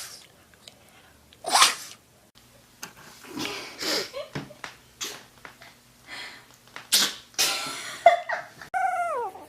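Dogs sneezing: about six short, sharp sneezes a second or so apart, with a quicker cluster in the middle.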